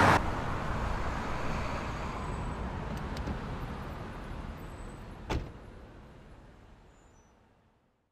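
Street background noise that slowly fades away. A car door latch clicks faintly about three seconds in, and the door shuts with a single sharp thump a little after five seconds in.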